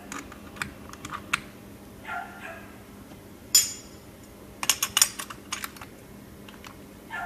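Scattered metallic clicks and clinks from a stopped braiding machine's mechanism being handled, with a sharp ringing clink about three and a half seconds in and a quick run of clicks around five seconds. A faint steady hum runs underneath.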